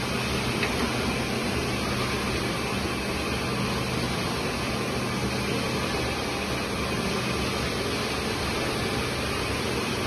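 Gem shaping machine's electric motor and diamond wheel running steadily, a constant hum with a whirring hiss over it.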